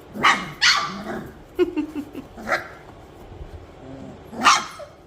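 Three-and-a-half-week-old Standard Goldendoodle puppies giving short little barks and yips, about five or six separate calls, with a louder one about four and a half seconds in.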